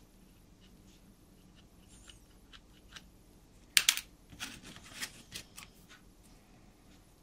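Small handling clicks and taps at a workbench as thin super glue is applied to a laser-cut wagon frame: a few faint ticks, then two sharp clicks a little over halfway, followed by a quick run of lighter clicks and taps.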